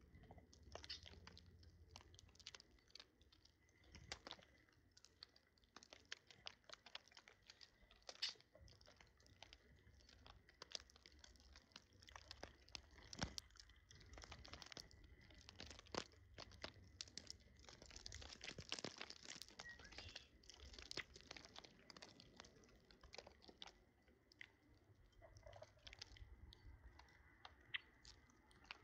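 Small birds pecking and cracking seeds: faint, irregular sharp clicks and crunches.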